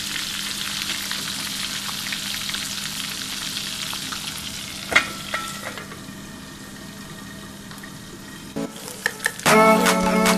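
Fish head deep-frying in hot oil in a kadai, a steady crackling sizzle. About five seconds in, a metal lid clanks onto the pan with a brief ring, and the sizzle turns quieter and muffled under it. Background music comes in near the end.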